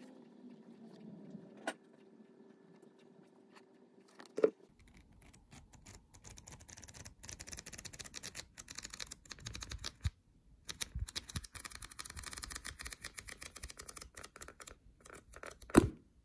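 Pages of a soft-cover book riffled fast under the thumb: a dense fluttering rattle of paper for about ten seconds, starting about four and a half seconds in. A few sharp taps from handling the book, the loudest just before the end.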